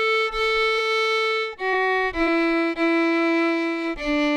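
A violin plays a slow bowed phrase of single notes: a long A, a short F sharp, a long E, then a D begins near the end.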